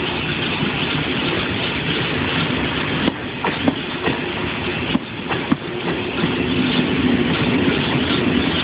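Corail passenger coaches rolling past at low speed: a steady rumble of wheels on rail, with irregular knocks as the wheels pass over rail joints.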